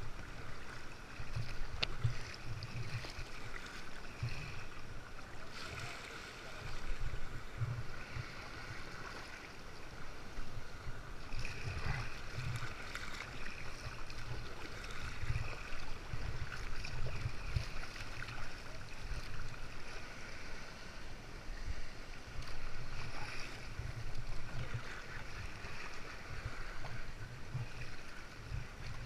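Sea water lapping and splashing against a kayak as it is paddled along, with irregular low rumbling.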